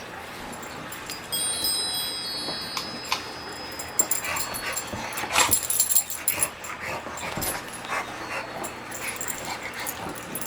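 A pet dog making short sounds, with a cluster of quick clicks and knocks from about four to seven seconds in. A high, thin ringing tone sounds for about two seconds near the start.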